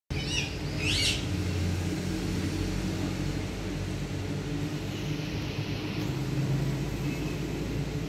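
Steady low rumble, with a few short bird chirps in the first second or so.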